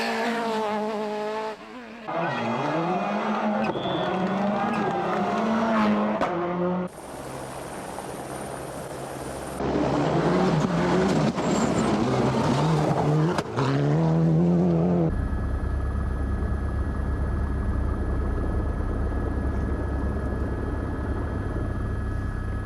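Rally cars' engines revving hard, pitch climbing and dropping through gear changes, in several short clips cut together. In the last third a steady low rumble with a faint steady whine.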